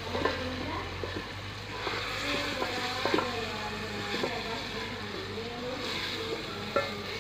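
Wooden spoon stirring cauliflower curry in a stainless-steel pot on a gas burner, knocking against the pot several times over the curry's steady sizzle.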